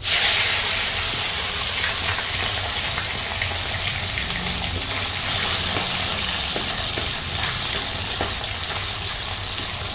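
Small whole fish sizzling in hot oil in a kadai. A loud hiss starts suddenly as the fish go into the oil, then carries on as steady frying, dotted with crackles and spits, easing slightly over time.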